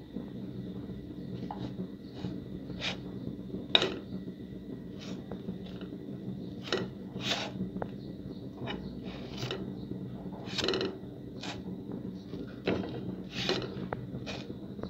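Metal spatula clicking and scraping against a nonstick frying pan as English muffins are turned over, in irregular sharp knocks, the loudest about four seconds in, over a steady low hum.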